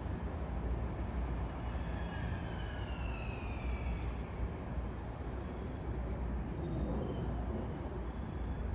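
Metro-North electric commuter train rolling slowly over curved track and switches: a steady low rumble, with a thin high wheel squeal gliding down in pitch about two seconds in and another brief squeal later on.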